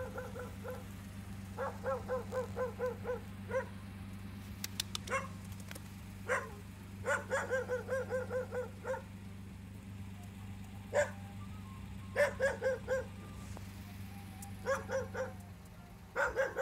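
A dog barking in quick runs of short yaps, about four or five a second, with a few single barks between the runs, over a steady low hum that stops near the end.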